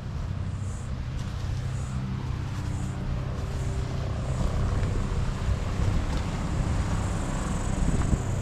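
A low, steady engine drone, with a faint high chirp repeating about once a second.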